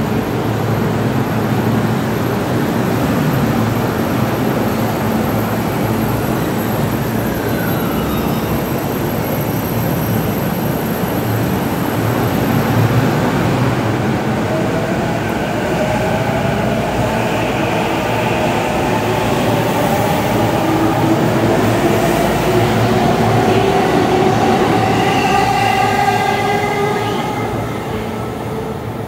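Onboard running sound of a JR East E233 series 0 electric train: a steady rumble of wheels on rail, with a whine of several tones from the traction motors rising in pitch from about halfway through and cutting off shortly before the end.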